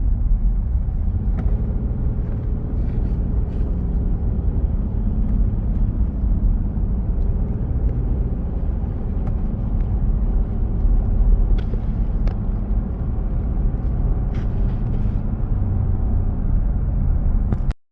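Steady low rumble of a moving vehicle, with a few faint clicks; it cuts off suddenly near the end.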